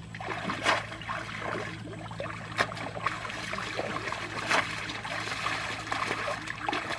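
Shallow muddy water splashing and sloshing as people wade quickly through it and plunge a bamboo fish trap, with a few sharper splashes, the loudest about two and a half seconds in.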